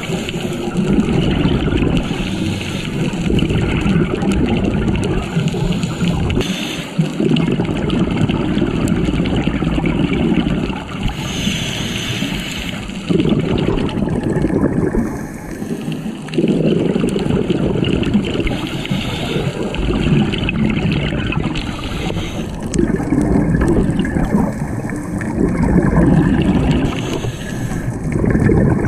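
Scuba diver breathing through a regulator underwater: bursts of exhaled bubbles gurgling for a few seconds at a time, broken by short quieter gaps between breaths.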